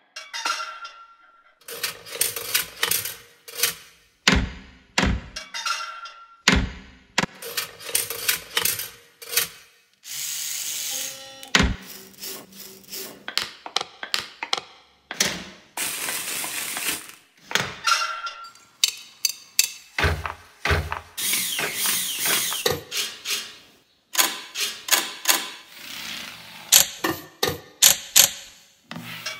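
Rhythmic ensemble music played on household objects: a string of taps, knocks and clicks with a few longer hissing, shaking stretches. Among the objects are a plastic drink bottle being squeezed and a wooden folding ruler being clacked.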